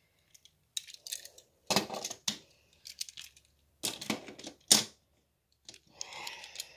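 Die-cast Hot Wheels toy cars being set back onto a toy race track by hand: a series of separate sharp clicks and clacks of the small metal cars knocking against the track and each other.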